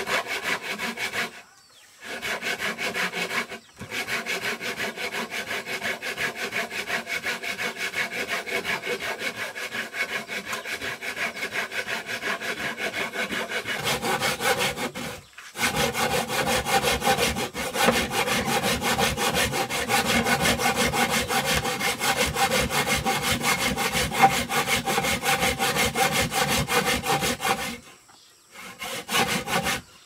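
Hand saw cutting through wood with quick, steady back-and-forth strokes. It stops briefly a few times and runs louder after a pause about halfway through.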